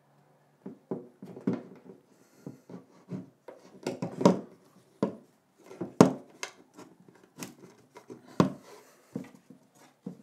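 Bamboo wall shelf knocking and scraping against the wall as its built-in brackets are worked onto protruding screw heads: a string of irregular wooden knocks and rubs, the sharpest about four and six seconds in.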